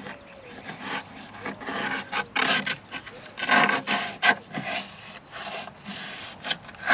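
A lump of propolis rubbed in uneven scraping strokes against the inside wall of a wooden bee swarm-trap box, scenting it to attract a swarm.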